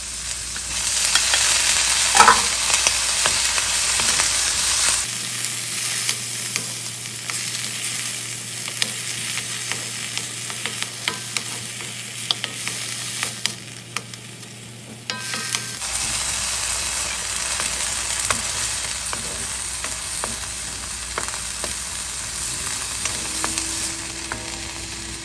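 Frozen green peas and chopped onion sizzling in hot olive oil in a steel wok, stirred with a wooden spatula that scrapes and taps against the pan.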